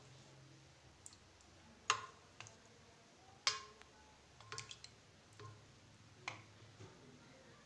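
A knife knocking and scraping against a stainless steel bowl while it stirs and pushes mozzarella curd through hot water: about eight irregular taps, a few ringing briefly, with small water sounds.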